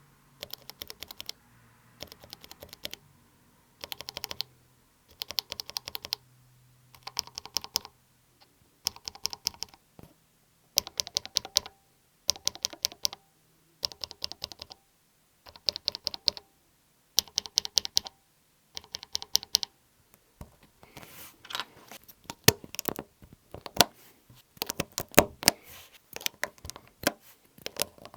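Bare Akko mechanical keyboard switches on a switch tester, pressed with no keycaps fitted: short bursts of several quick clicks, repeated every second or so. About two-thirds of the way in, it turns to denser, irregular clicking.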